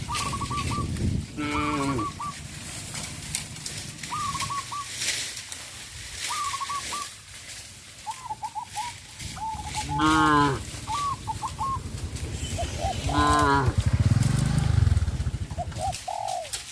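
Cows mooing several times: a few higher, drawn-out moos and one loud, deep moo near the end.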